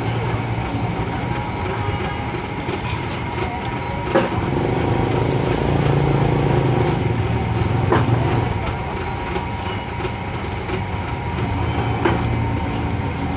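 A motor vehicle's engine running steadily with a low hum, and a short sharp click about every four seconds.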